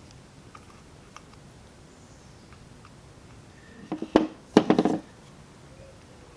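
Small metal parts and a screwdriver handled at the bench while the butterfly screws are fitted to a carburetor throttle shaft: a few light clicks, then a brief burst of metallic clattering and knocking about four seconds in.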